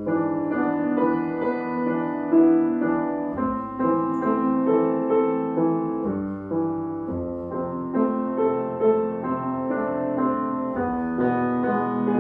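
Acoustic grand piano played solo: a melody of notes struck about twice a second over held bass notes.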